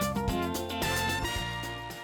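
Instrumental background music with a beat, fading out near the end.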